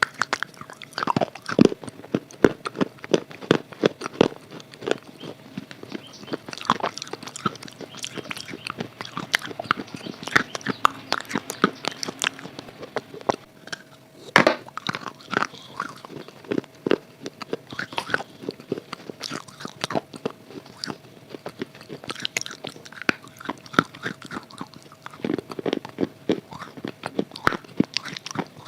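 Close-up crunching and chewing of a dry red clay (khadi) bar coated in red khadi paste: many sharp, irregular bites and crunches with a brief lull about halfway through, over a faint steady hum.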